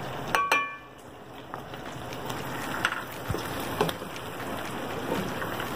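Hot oil sizzling and crackling around small whole eggplants frying in an aluminium pot. About half a second in there is a short ringing clink as the spices are tipped in from a plate, and the sizzle drops briefly, then builds back. A few light knocks of stirring come later.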